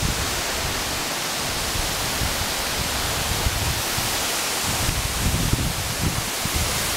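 A waterfall's steady rushing, an even hiss of falling water with no break. From about five seconds in, low gusty rumbles come in under it.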